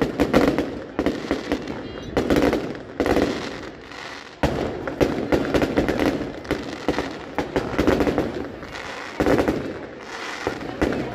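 Fireworks display going off: a dense barrage of bangs and crackling reports, with heavier booms landing about once a second.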